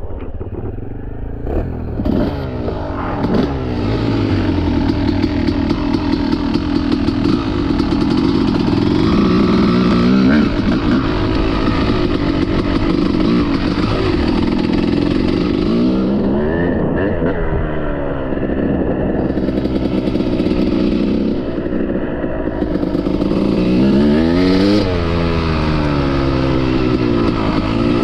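Yamaha YZ250 two-stroke single-cylinder dirt bike engine being ridden hard, revving up and dropping back again and again as the rider works the throttle and gears, with the throttle closed briefly twice past the middle.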